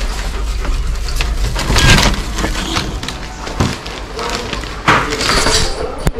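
Apartment front door being opened and passed through: clicks and knocks from the handle, lock and door. The loudest knock comes about two seconds in, with more knocks later.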